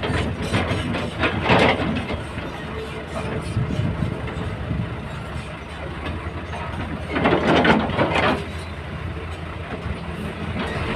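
Excavator's diesel engine running steadily, with two louder rushes of noise, a short one about a second and a half in and a longer one around seven to eight seconds in.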